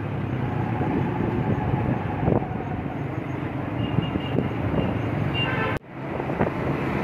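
Motorcycle ride through city traffic: steady engine and road noise. The sound drops out suddenly for a moment about six seconds in.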